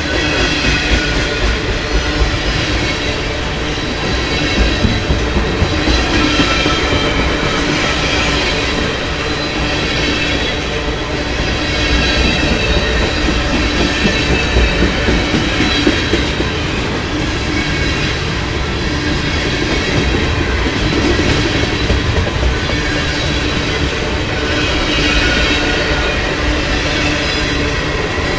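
Freight train tank cars rolling past close by: steel wheels rumbling and clattering over the rail, with thin high ringing tones over the noise.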